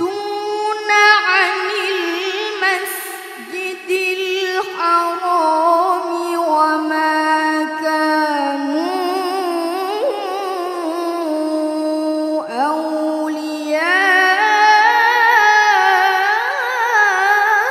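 A boy's voice reciting the Quran in melodic tilawah style, drawing out long held notes with wavering ornaments. About twelve and a half seconds in the voice breaks off briefly, then climbs to a higher, louder line.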